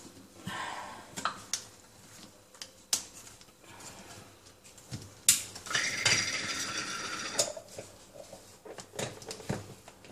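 Handling noise of a plastic churro press and a steel pot as dough is packed into the press and its screw plunger is fitted: scattered clicks and knocks, a sharp knock about five seconds in, then a scrape lasting over a second.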